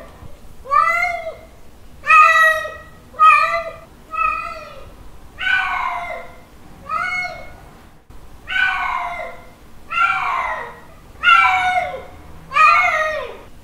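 Domestic cat calling in a series of about ten loud meows, each rising then falling in pitch, some short and some longer and drawn out. The uploader presents these as a male cat's mating call to a female.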